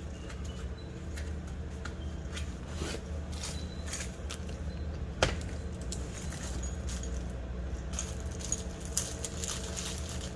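Hand tools and small metal parts being handled: scattered light metallic clicks and jingles, with one sharper click about five seconds in, over a steady low hum.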